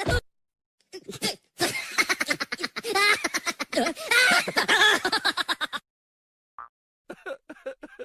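Comedy laughter sound effect: a burst of rapid, chopped, high-pitched laughing for about five seconds, a short single beep, then a quieter run of short chuckles.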